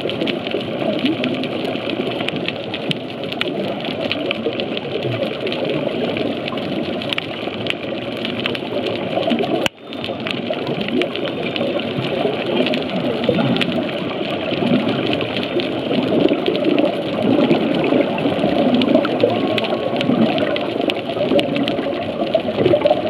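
Underwater ambient noise at a coral reef: a steady, dense crackle of small clicks. It cuts out for an instant about ten seconds in.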